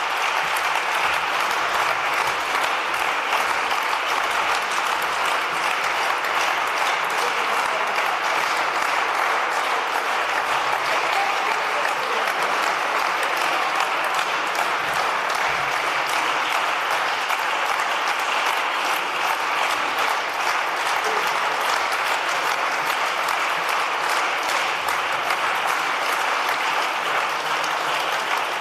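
Sustained applause from a large audience in a big hall, a steady dense clapping that holds at an even level.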